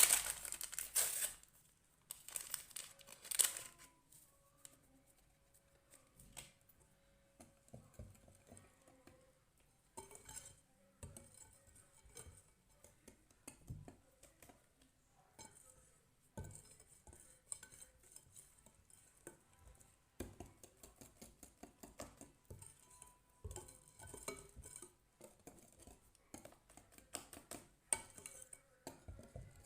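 A utensil clinking and scraping against a mixing bowl in short, irregular strokes as madeleine batter is mixed by hand. Loudest in the first few seconds, then faint.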